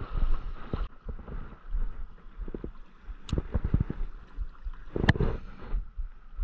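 Wind buffeting the microphone over the steady rush of a creek, with two sharp clicks partway through.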